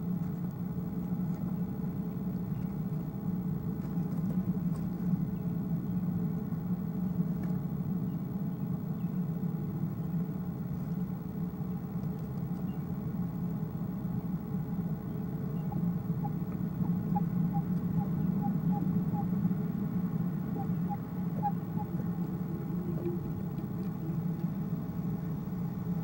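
A steady low hum or rumble runs throughout. About sixteen seconds in, an owl in the nest box gives soft sounds: two short runs of faint, quick, evenly spaced notes.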